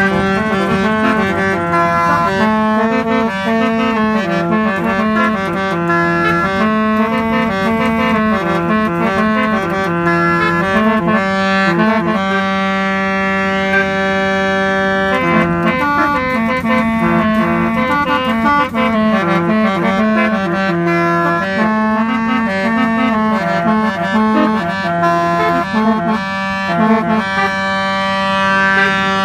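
Musical car horn playing a tune in a reedy, saxophone-like tone, its notes stepping up and down with a long held note about halfway through.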